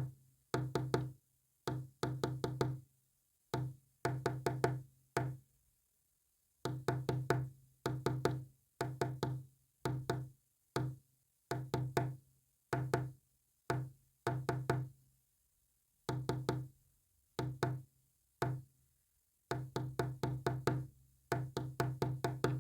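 Morse code sent as a low, buzzy tone: short beeps keyed on and off in quick groups separated by brief pauses, each beep starting with a click.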